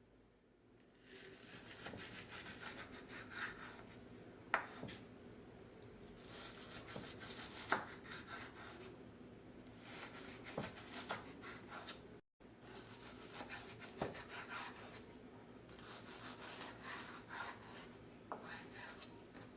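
Hand food preparation in a kitchen: repeated rasping, scraping strokes against a wooden surface, with a few sharp knocks between them. This is the sound of vegetables being peeled or cut by hand.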